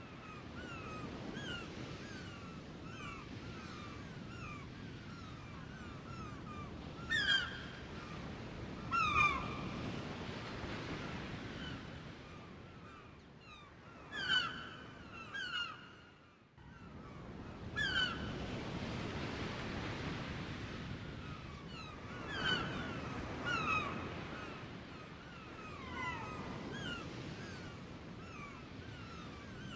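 Waves washing in and receding in a slow swell and fall, with many birds giving short, downward-sliding calls over the surf, several of them loud and close.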